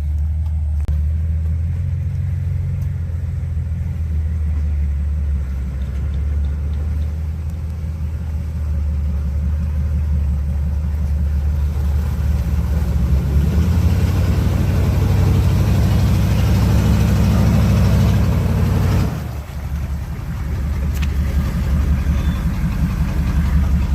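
Off-road 4x4 engine running under load at low revs. It revs harder and louder over the second half, then drops off abruptly and picks back up.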